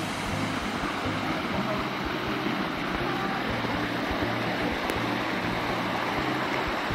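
Creek water rushing steadily over small cascades on shale ledges.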